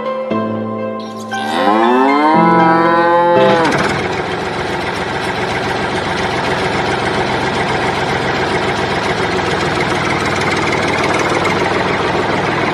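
A cow mooing in one long call that rises in pitch, after a few plucked music notes. About three and a half seconds in, a steady engine idling sound takes over and runs on unchanged.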